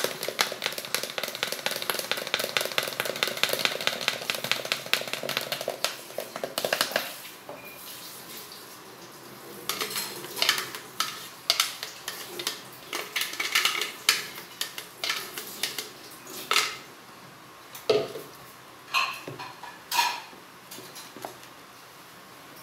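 A spoon stirring fast inside a plastic blender jar of aloe vera juice: a quick run of clicks and scrapes for about seven seconds. After that come scattered knocks and scrapes of jar and spoon as the green juice is poured into a plastic bucket of soap paste and stirred in.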